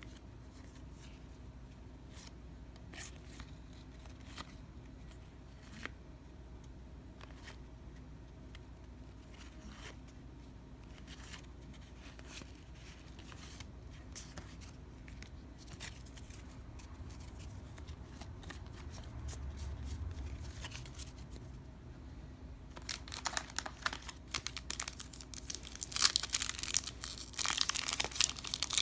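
Faint handling with scattered light clicks, then, about two-thirds of the way in, trading-card wrapping being torn open and crinkled, loudest near the end.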